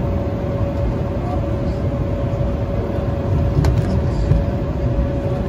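Jet airliner cabin noise inside an Embraer E190: a steady rumble with a constant engine whine from its GE CF34 turbofans. There is a brief click about three and a half seconds in.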